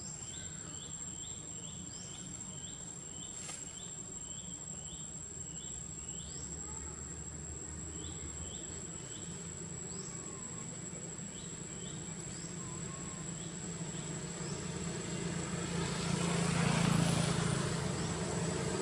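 Outdoor insect drone: a steady, thin, high-pitched tone with short rising chirps repeated about twice a second, thinning out after the first few seconds. A low rumble swells louder near the end.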